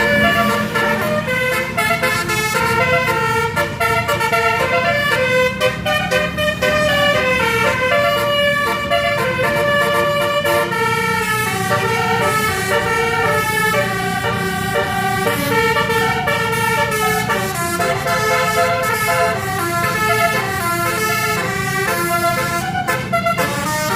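A tour bus's multi-tone 'basuri' telolet horn playing a melody, its several horn tones stepping up and down in pitch without a break. A low engine rumble runs underneath.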